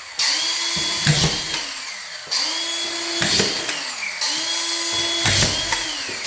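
Collated drywall screw gun driving screws into plasterboard: the motor spins up, a short clatter as each screw is driven and the strip advances, then the motor winds down. This happens three times, about every two seconds.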